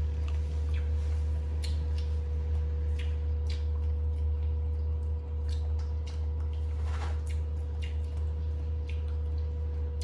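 A macaque eating a banana: scattered small clicks and soft squishy mouth sounds of chewing. Under them runs a steady low hum, which is the loudest thing throughout.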